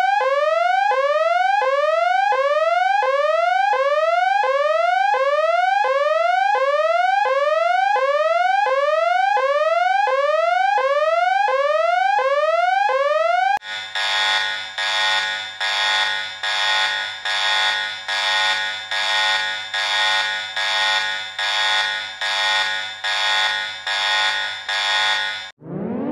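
Emergency alert system alarm tones: a rising electronic whoop repeated a little more than once a second. About halfway through it switches to a harsh, buzzing pulsed tone, about three pulses every two seconds.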